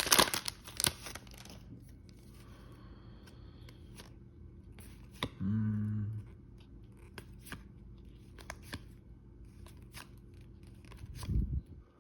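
Foil wrapper of a trading card pack being torn open, a loud crinkling tear for about a second and a half, followed by quiet clicks and rustles of the cards being slid and handled.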